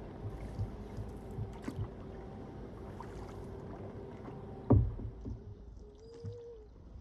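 Canoe being paddled on a river: a steady low rumble with small irregular knocks, and one louder knock about two-thirds of the way in.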